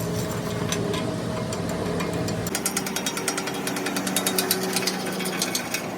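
A power tool hammering rapidly over a steady machine hum. The strokes become denser and sharper about halfway through.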